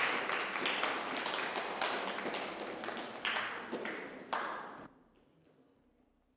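Audience applauding, the clapping thinning out to a few last claps and stopping about five seconds in.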